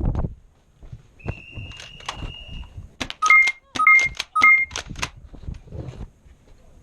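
Electronic beeping: one long steady beep lasting about a second and a half, then three short two-tone beeps about half a second apart, each with sharp clicks.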